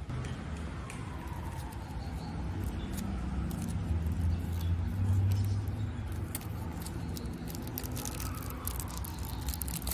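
A motor vehicle passing by: a low engine sound that builds to its loudest about five seconds in and then fades. Light clicks and crinkles of a foil candy wrapper being handled are heard over it.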